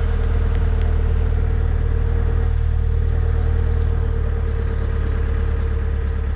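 Narrowboat's diesel engine running steadily with a low, even hum.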